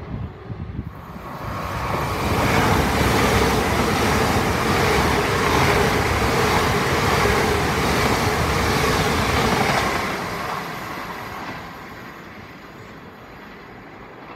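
An LNER Azuma (Hitachi 800-series) train passing through the station on the rails: the rumble of wheels on track builds, stays loud for about eight seconds as the carriages go by, then fades away.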